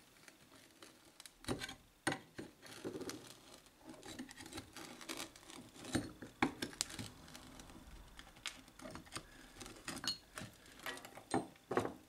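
Screwdriver tip scraping and prying at a plaster-and-sand mould, giving many small irregular clicks, scrapes and crumbles as a cast aluminium block is worked loose. A few louder knocks come near the end as the casting comes free.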